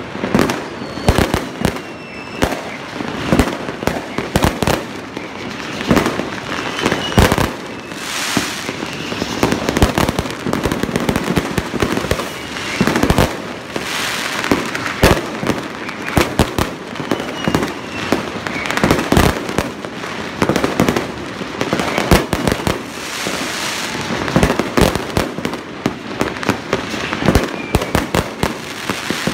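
Many fireworks going off at once: a dense, unbroken barrage of bangs and pops, with a few faint falling whistles among them.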